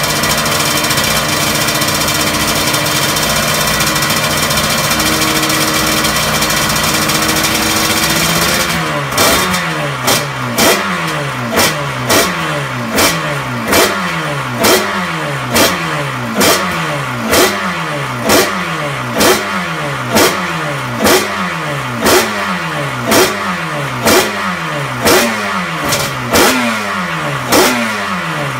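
Honda NSR500 V4 two-stroke race engine running steadily on the stand. About nine seconds in, it starts being blipped again and again, about once a second, with the revs falling back after each blip.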